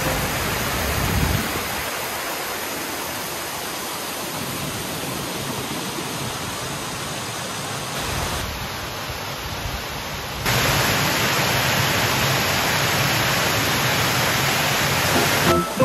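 Steady rush of a waterfall. The sound drops about eight and a half seconds in, then comes back louder about two seconds later.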